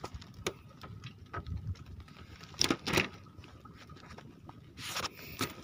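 Scattered taps and knocks on a bamboo platform deck as two freshly caught spotted scats are handled and laid on the slats. Two louder knocks come close together about two and a half seconds in, and another cluster comes near the end.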